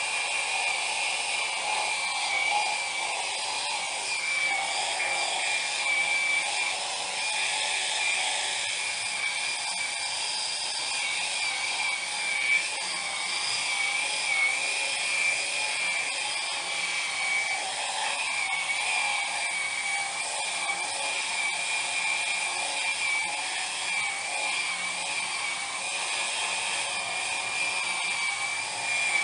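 Electric epilator running steadily: a continuous high-pitched motor whine that wavers slightly in pitch, over a buzzing hiss.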